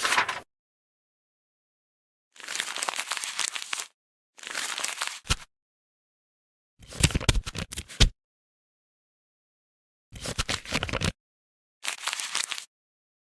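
A string of separate short sound effects, each a burst of crackling, crumpling noise about a second long, with dead silence between them; two of them end in a sharp hit.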